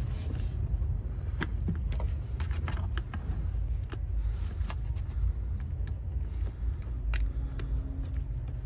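Scattered light clicks and taps of plastic interior trim and its push clip being worked back into place by hand, over a steady low rumble.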